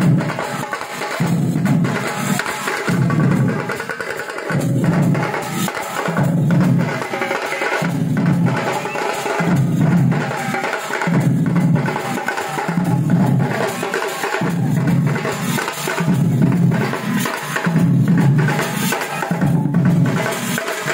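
A troupe of large round drums beaten with sticks, playing a fast, continuous rhythm for the kavadi dance. Heavy low beats recur about every second and a half.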